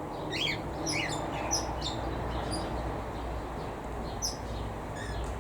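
Small aviary birds chirping: short, high, quick-gliding calls scattered through, over a steady low background rumble.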